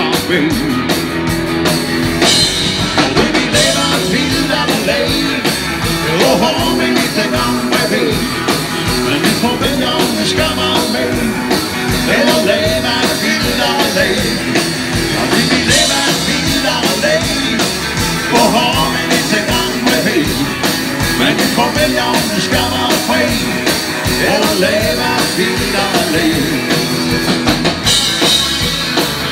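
Live band playing an upbeat dansband song, with a man singing lead at the microphone over drum kit, electric bass and keyboard, heard through the PA from the audience.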